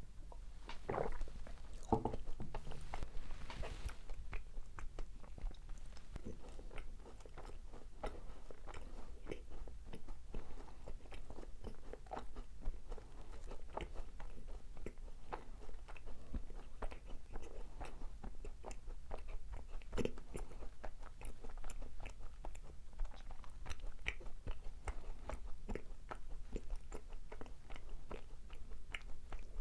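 Close-miked biting and chewing of macarons: the crisp shells crunch and crackle amid many small wet mouth clicks. There are louder bites in the first couple of seconds and again about twenty seconds in.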